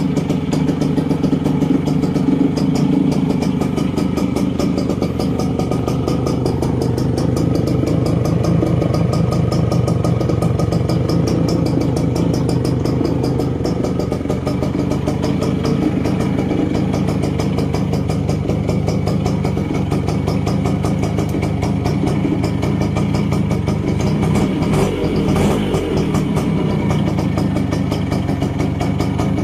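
A Suzuki X4 GP125 motorcycle engine on its stock exhaust, idling steadily at an even pitch. There is a brief extra noise about 25 seconds in.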